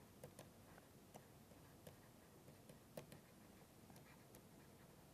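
Faint, irregular clicks of a stylus tapping on a pen tablet while handwriting, against near-silent room tone.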